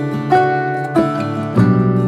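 Background music: a plucked-string instrumental with a light, even run of notes, a new note struck about every half second.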